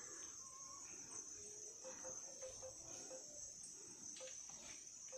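Faint, steady high-pitched drone of insects in tropical forest vegetation, with a faint run of short low notes about two seconds in.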